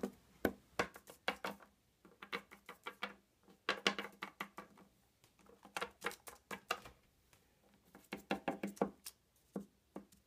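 Small plastic Littlest Pet Shop figurines being tapped and hopped along a hard tabletop by hand, a run of light knocks in quick clusters of several taps each, with short pauses between.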